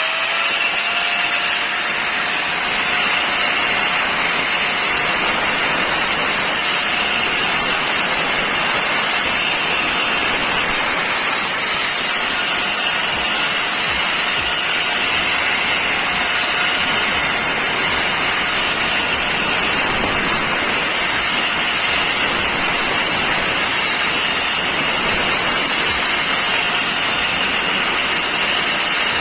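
Super Tech angle grinder running at full speed with a steady high whine and hiss, grinding a kitchen vegetable knife to sharpen its blunt edge.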